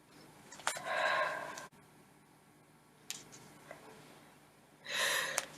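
A woman's gasping in-breaths as a sneeze builds: two short, sharp inhalations, one about a second in and one near the end, with a faint click between them.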